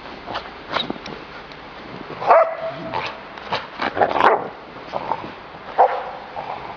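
Barbet dogs barking during rough play, in short barks spaced a second or two apart. The loudest come about two seconds in and about four seconds in, with another near six seconds.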